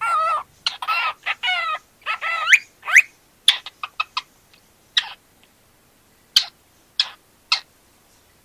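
Cockatiel chirping and whistling: a quick run of warbling calls for the first few seconds, then short, sharp single chirps, spaced out and thinning toward the end.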